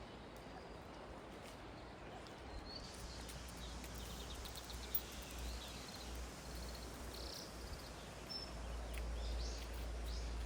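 Outdoor ambience of small birds chirping on and off, with a quick run of repeated high notes about four seconds in, over a low steady rumble that grows stronger partway through.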